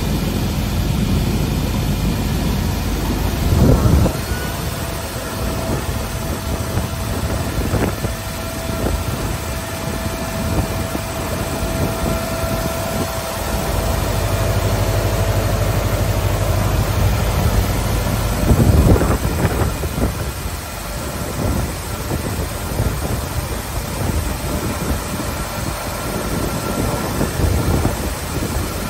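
Weinig Hydromat 22 AL four-sided planer running, its motors and cutter heads making a steady mechanical rumble. A steady whine sets in about four seconds in and stops near seventeen seconds, and there are loud knocks about four seconds in and near nineteen seconds.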